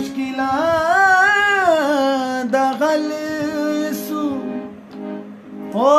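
A man singing a Punjabi Christian hymn, drawing out long wordless phrases whose pitch wavers and glides. A steady held accompaniment sounds underneath.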